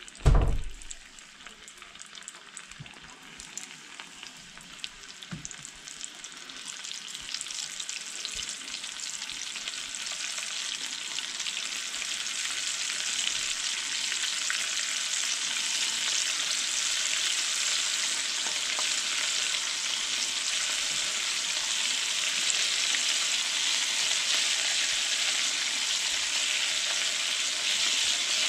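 Floured burbot pieces deep-frying in oil in a cast-iron skillet: a steady sizzle that builds over the first dozen seconds as more pieces go in, then holds. A dull thump right at the start.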